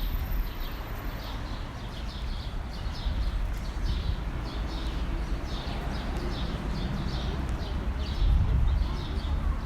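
Small birds chirping over and over, several short high chirps a second, over a steady low rumble of street noise.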